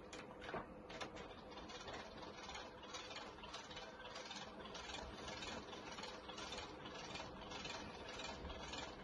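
Class 156 train destination blind being wound through its destinations: the roller mechanism runs steadily with a rough clicking about twice a second.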